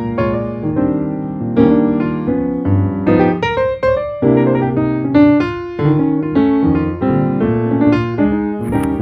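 Piano music: a melody of struck notes over changing chords.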